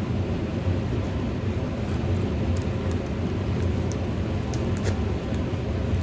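Air conditioner running steadily: a low hum with a hiss over it, with a few faint clicks from handling near the middle.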